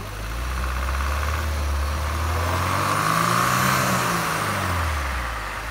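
Mahindra Thar's diesel engine pulling hard through deep snow past the camera while on a tow strap, its revs rising to a peak about three and a half seconds in and then falling away, with a hiss of tyres churning snow.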